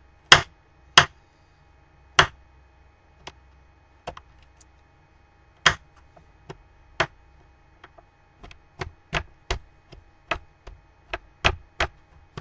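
Kitchen knife chopping celery on a metal baking pan: sharp knocks, a few spaced out at first, then a quicker run of about three a second for the last few seconds.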